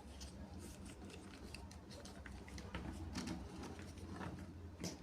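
Irregular small clicks, taps and light rustling of plastic toy parts and packaging being handled, a little busier in the second half.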